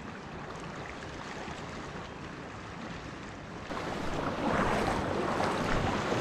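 Small sea waves lapping and washing over rocks in the shallows, steady at first, then abruptly louder and splashier about two-thirds of the way in.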